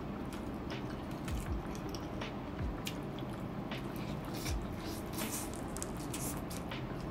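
Close-up eating sounds of saucy pork ribs eaten by hand: wet chewing, lip smacks and sucking, in many short clicks that grow busier past the middle.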